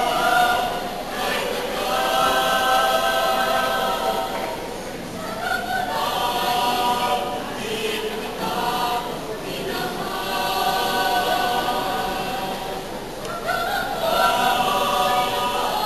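Teenage choir singing in several voice parts, holding long chords phrase after phrase.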